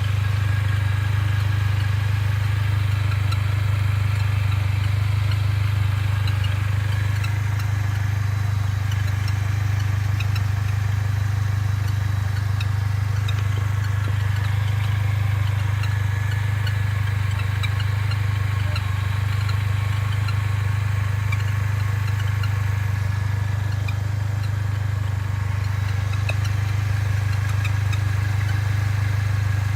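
Mercedes-Benz A45 AMG's turbocharged 2.0-litre four-cylinder running with a steady low drone. Faint, short, high chirps are scattered throughout: this is the bird-like abnormal noise the owner hears with the engine fully warm, cause unknown.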